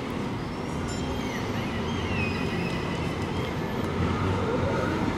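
Siemens Avenio low-floor tram approaching on street track: a steady low rumble that grows a little louder about four seconds in.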